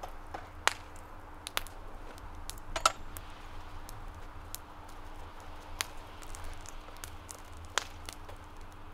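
A few scattered sharp clinks and crackles as steel tongs work the hot hammer head in the coals of a wood-fired forge, over a faint steady hum.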